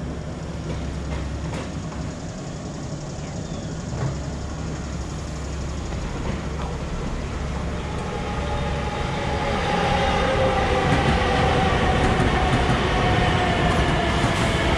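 LIRR M7 electric multiple-unit train approaching and pulling alongside, growing louder from about eight seconds in. Its motors give a whine of several tones that slowly fall in pitch as the train slows.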